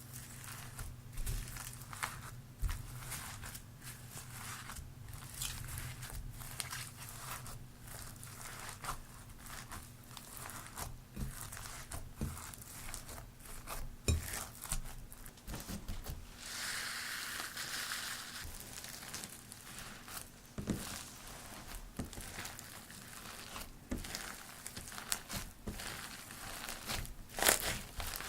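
Glossy slime with foam beads mixed in being kneaded and squeezed by hand: a dense, irregular run of crackles and pops, with a longer spell of steady crackling about two-thirds of the way through and one sharp, loud crack near the end.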